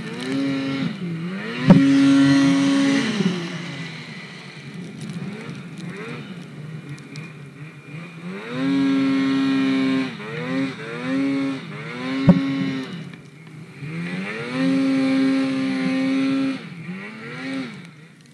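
Polaris Pro RMK snowmobile's two-stroke engine revving under throttle through deep snow: three long pulls where the pitch climbs, holds high and drops back, with several quick blips in between. Two sharp knocks, about two seconds in and about twelve seconds in.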